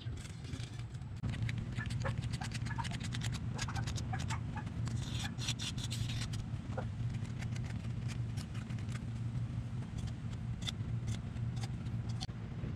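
Small metallic clicks and scrapes of gloved hands and a tool working on the exposed cylinder head and rocker gear of a Honda CRX engine, over a steady low hum. A brief hiss comes about five seconds in.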